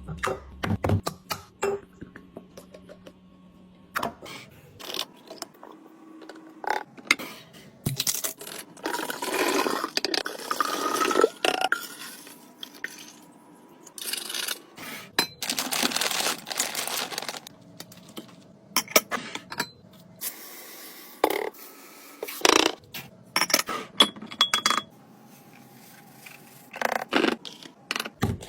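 Hard containers and bottles being handled and set down during a fridge restock: a string of separate clinks, knocks and scrapes, with two longer stretches of noise, about a third of the way in and again past halfway.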